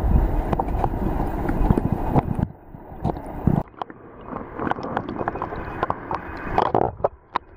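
River water heard through an underwater camera's housing: a loud, muffled rumble of current for the first couple of seconds, then a quieter rushing hiss with many sharp little clicks and knocks.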